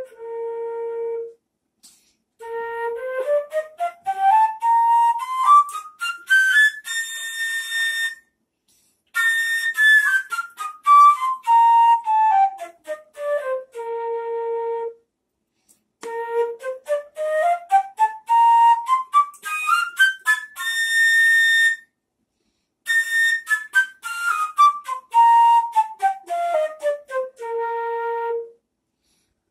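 Concert flute playing a two-octave B-flat major scale, rising and falling twice with the top note held briefly, each run played with a different articulation and short breath pauses between runs.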